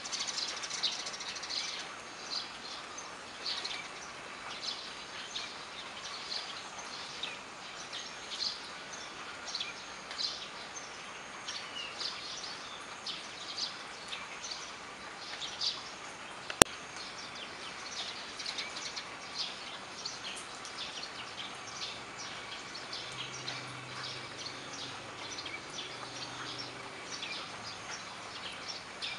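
Steady rain falling on wet concrete and puddles, with frequent short high chirps throughout and a single sharp click just past halfway.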